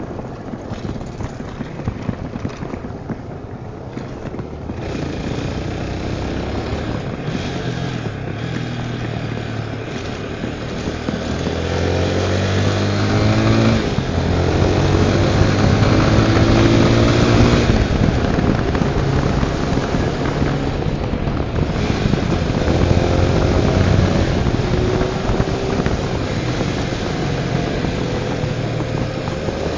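Tornado 250 motorcycle engine running under way, its pitch rising as it accelerates about midway and again in the later part, and louder from about halfway on.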